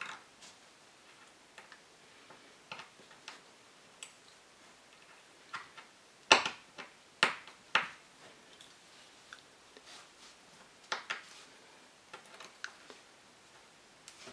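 Irregular light clicks and taps of small metal engine parts and hand tools being handled on a workbench during disassembly of an OS FS 40 model four-stroke glow engine. The loudest is a sharp knock about six seconds in, followed by two more about half a second apart.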